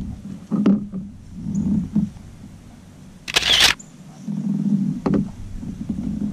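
A small bass being landed beside a kayak: a couple of knocks against the boat and a short burst of splashing about halfway through.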